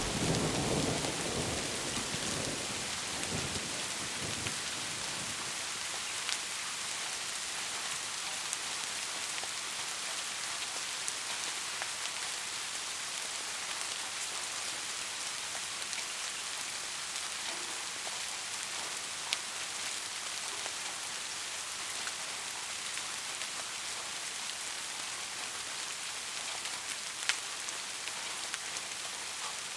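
Steady rain falling, with a low thunder rumble dying away in the first few seconds. A few louder single drips tap through the hiss.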